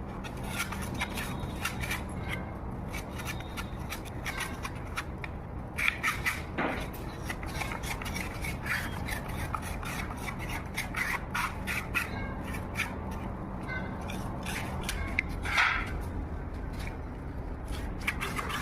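Metal trowel or grout float scraping and tapping as epoxy tile grout is worked, a steady run of short rubbing scrapes with a few louder strokes.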